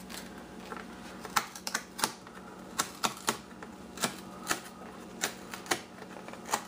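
Fingers and fingernails picking at the sealed top of a cardboard phone box: a string of about a dozen sharp, irregular clicks and ticks.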